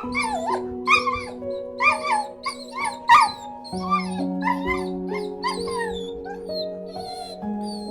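A run of short, high-pitched animal yips or squeals, about two a second, over soft background music with sustained notes.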